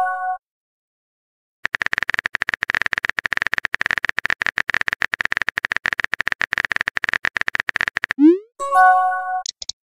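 Phone keyboard typing sound effect: a fast, even run of key clicks for about six seconds as a text message is typed out. It ends in a rising whoosh and a short chime as the message is sent, followed by two brief high blips.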